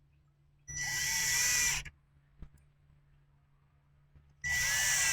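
Power drill/driver running in two bursts of about a second each, driving screws into the wood of the door edge.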